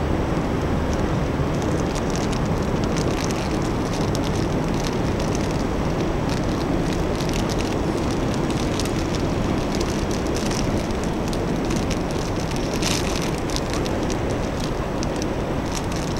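Steady waterfront city ambience: a low, even rumble with many faint crackling ticks scattered through it.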